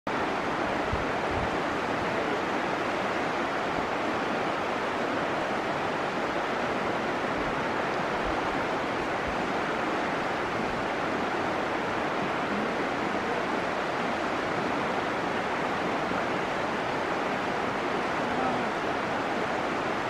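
Shallow river water rushing steadily over rocky riffles and gravel bars.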